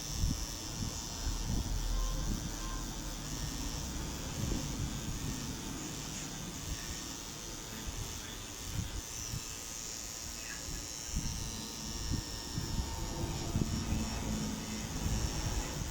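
Electric tattoo machine buzzing steadily as it runs, with a constant high whine and some low handling knocks.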